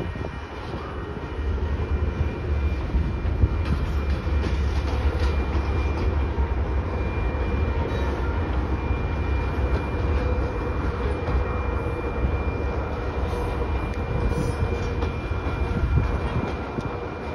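Covered hopper cars of a grain freight train rolling past a grade crossing: a steady, loud low rumble of steel wheels on the rails, with a few thin steady high tones over it.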